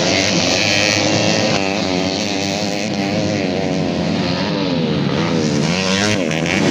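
Several motocross dirt-bike engines revving, their pitch rising and falling again and again as the riders work the throttles.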